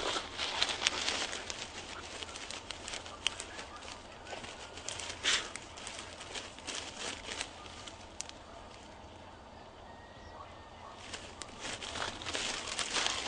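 Crackling and rustling of steps through dry grass or stubble, with a short sharp sound about five seconds in. It goes quieter for a few seconds, then the crackling picks up again.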